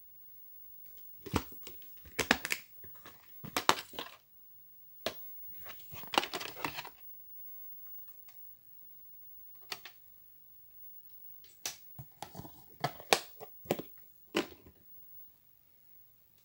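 Plastic VHS clamshell case being handled and opened: clusters of sharp clicks and crackling, rustling plastic with short pauses between them.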